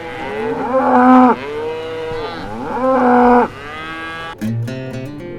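Cattle mooing: two long, loud moos about two seconds apart, with fainter lowing from other cows around them. Acoustic guitar music comes in near the end.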